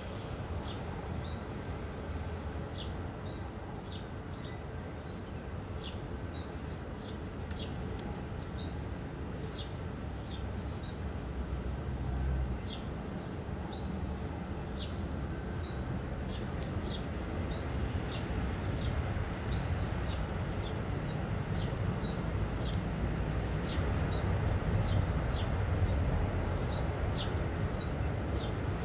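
A bird chirping repeatedly: short, high, falling chirps about once a second, over a steady low rumble.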